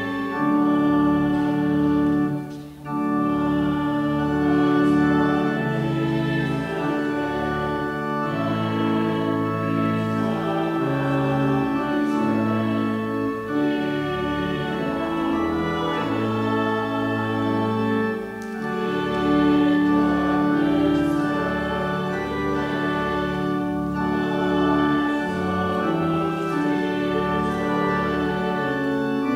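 Church organ playing sustained chords over a pulsing bass line, with a brief break between phrases about three seconds in.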